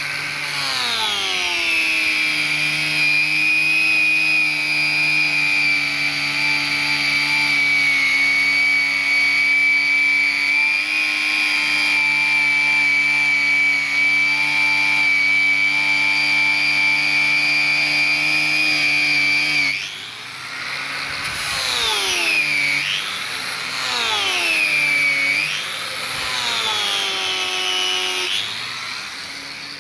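Angle grinder with a polishing disc working a stainless steel bar. The motor's pitch drops as the disc bites in, holds steady for a long stretch, then about two-thirds through sags and climbs back three times.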